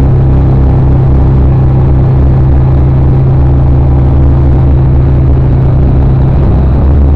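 Very loud live concert music through a PA: a sustained low bass drone with no break, overloading the recording.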